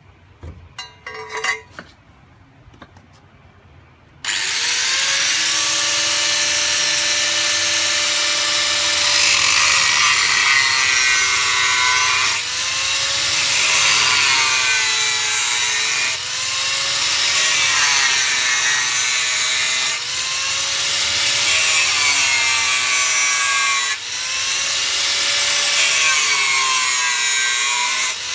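A few clinks as a metal pipe is handled. Then, about four seconds in, an angle grinder starts and cuts into the steel pipe with a loud, steady grinding. The motor's whine dips in pitch every couple of seconds as the disc is pressed into the metal.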